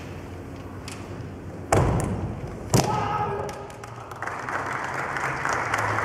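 Kendo bout: two sharp, loud hits about a second apart, from bamboo shinai striking armour together with stamping footwork on a wooden floor. Shouted kiai follow the hits.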